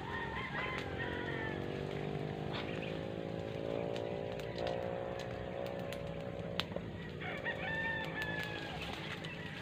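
Roosters crowing: several long pitched calls in a row, one running into the next, over a steady low hum.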